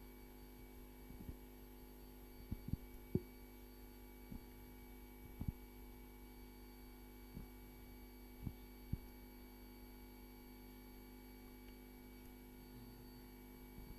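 Faint steady electrical hum, with about eight soft, irregular knocks scattered through the first nine seconds.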